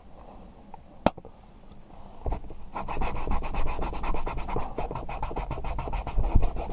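A paper tissue rubbing quickly back and forth over the fabric of a car's sun visor, close by, starting about two seconds in. A single sharp click comes about a second in.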